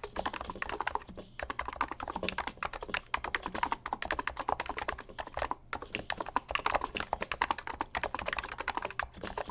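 Fast, continuous typing on a Niz keyboard with 55g electro-capacitive rubber-dome switches, many keystrokes a second, with brief pauses about a second in and halfway through.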